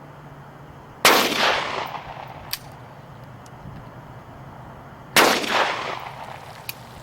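Two gunshots about four seconds apart, each followed by a rolling echo that dies away over about a second, with a faint sharp tick a little after each shot.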